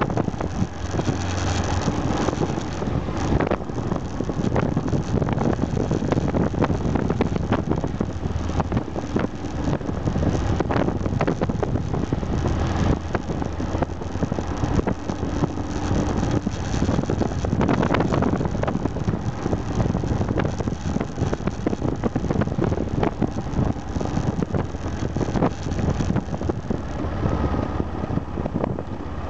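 Aprilia Pegaso 650 Strada's single-cylinder engine running steadily while riding, mixed with wind rush over the microphone.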